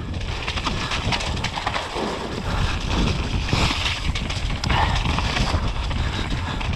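Mountain bike riding fast down a muddy dirt trail: knobbly tyres rolling on wet dirt and the bike clattering in irregular knocks and rattles over roots and bumps, with wind rumbling on the microphone.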